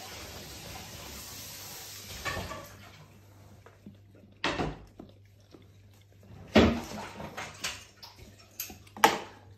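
Plastic tub on a dog's muzzle knocking and scraping against a wooden floor: several sharp knocks spaced a second or two apart, the loudest about two-thirds of the way through. A steady hiss fills the first couple of seconds.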